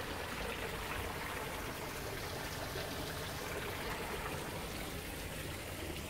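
Steady rush of water flowing along a small rice-terrace irrigation channel.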